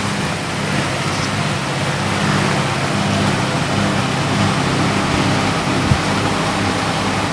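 A fan running with a steady rush and a low hum, with a single small click near the end.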